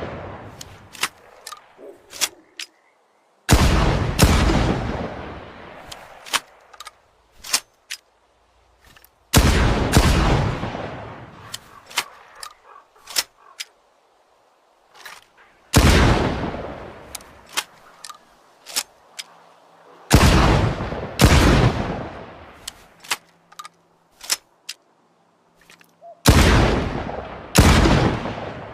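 Shotgun sound effect made with a broomstick: loud, sharp shotgun-like bangs, each trailing off in a long echoing tail over a couple of seconds. About eight come roughly every five or six seconds, some in quick pairs, with small clicks and rattles between them.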